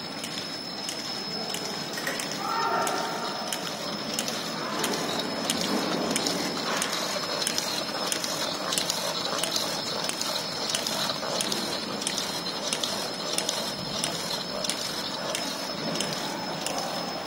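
AS-650 automatic folder gluer running, folding narrow crash-lock bottom boxes: a steady mechanical clatter of belts and rollers with frequent sharp clicks and a constant high-pitched tone.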